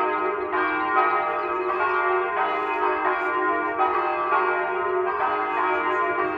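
Church bells ringing, struck about every three-quarters of a second, with each stroke ringing on into the next over a steady hum.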